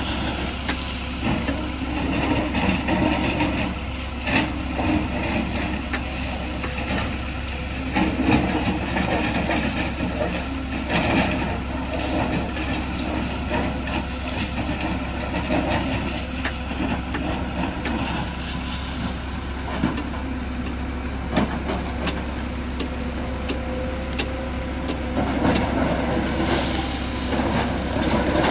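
Excavator diesel engine running steadily under load, with repeated knocks and clatter of rock and stones as the bucket digs and scrapes the rocky slope.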